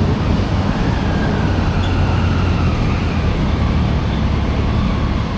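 Steady low rumble of engines and street traffic, with a faint wailing tone that slides down in pitch a second or two in.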